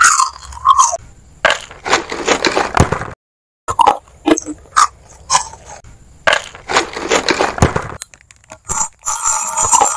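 A plastic snack wrapper is torn open with the teeth and crinkled, then a crisp round biscuit is bitten and crunched close to the microphone. Irregular sharp cracks and crackles come from the packaging and the bites.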